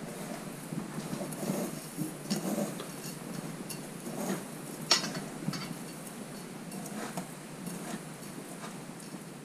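Hands pressing a fish fillet into dry panko breadcrumbs in a stainless steel bowl: soft rustling and scraping of the crumbs, with a few light clicks against the bowl, the sharpest about five seconds in.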